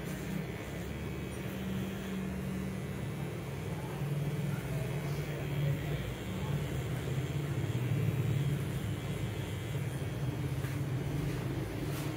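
Cordless VGR beard trimmer running with a steady low buzz as it cuts along a beard.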